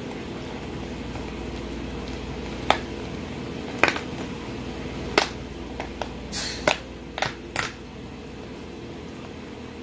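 Scattered sharp crunches and crackles, about eight over a few seconds, from crispy honey-garlic grilled toast being chewed and torn apart, over a steady low hum.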